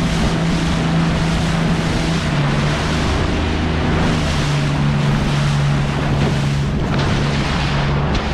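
Boat engine running at speed, with the hull rushing through the water and wind buffeting the microphone. The engine's hum drops a little in pitch about two seconds in, then holds steady.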